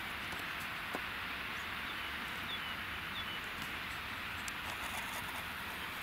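Steady rushing hiss of open mountain air, with a few short, high, falling bird chirps about two to three seconds in and a single click about a second in.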